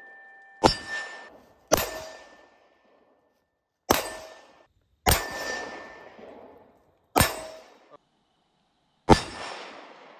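Six pistol shots from a 9 mm Glock 19, unevenly spaced a second or two apart. Most are followed by the short ringing ding of a steel target being hit.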